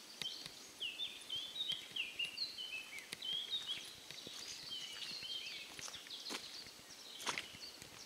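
A songbird singing: quick runs of short, high, down-slurred notes in several bursts, over a faint outdoor hiss with scattered light ticks.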